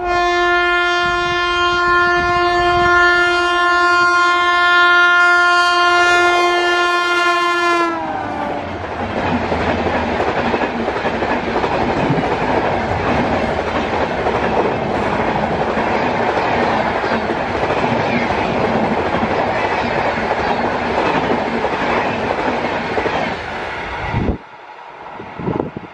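Kota Jan Shatabdi Express passing at speed: the locomotive's horn sounds one long chord for about eight seconds and slides down in pitch as the locomotive goes by. Then comes the loud rush and clickety-clack of the coaches speeding past, which cuts off suddenly near the end.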